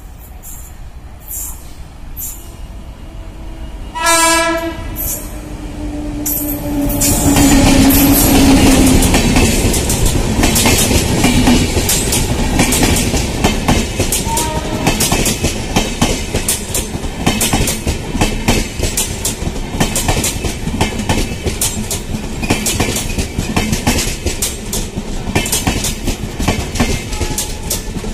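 Indian Railways passenger train sounding its horn once, for about a second, about four seconds in. It then passes close by with a loud rushing noise and a steady rhythmic clatter of coach wheels over the rail joints.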